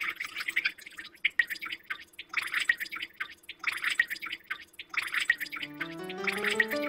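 Wet, dripping mouth sounds from a person drooling, coming in short repeated clusters. Near the end, music comes in with a rising run of notes.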